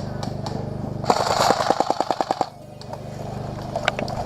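Airsoft electric gun firing a full-auto burst of about a second and a half, roughly ten rapid shots a second, followed by a few scattered single shots.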